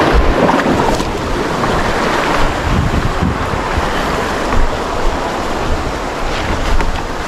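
Sea waves washing over rocks at the foot of a cliff, with wind buffeting the microphone in a low rumble.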